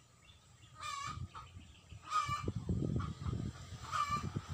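A bird calling in short, repeated calls, three in all, a second or more apart.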